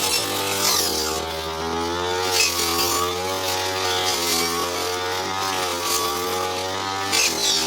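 Brush cutter engine running steadily at working speed, with brief hissy swishes now and then.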